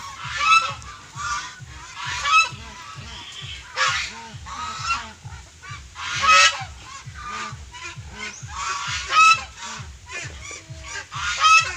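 Domestic geese honking over and over, with a loud call every second or two.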